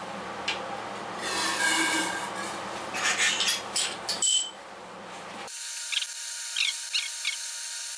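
Glass rubbing and scraping against glass, with small clinks, as one test tube is tipped into the mouth of another. A short ringing clink follows as a glass watch glass is set on top of the test tube. The sound then changes abruptly to a thin, sped-up hiss with a steady tone and a few short chirps.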